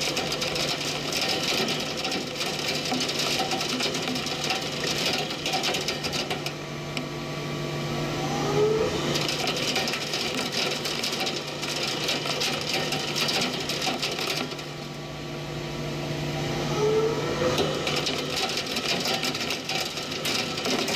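CNC lathe turning a metal shaft by conventional turning: a steady machine hum under a cutting hiss that swells and eases in passes roughly every eight seconds, with a brief rising whine as each new pass starts.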